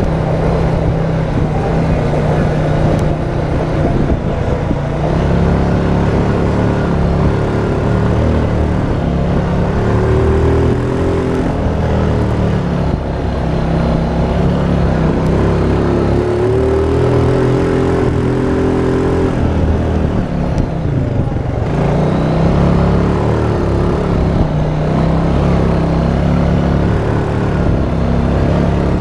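Honda Rancher ATV's single-cylinder four-stroke engine running under way on a dirt trail, its pitch rising and falling with the throttle. It eases off briefly about two-thirds of the way through.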